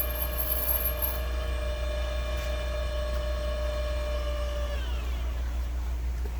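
Valve refacing grinder running with a steady whine as the valve face sparks out against the grinding stone. About five seconds in, the machine is shut off and the whine slides down in pitch as it coasts to a stop.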